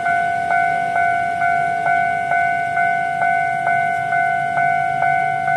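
Level-crossing warning bell ringing steadily, a bright ding a little over twice a second, each ring fading before the next. It signals that the barriers are down for an approaching train.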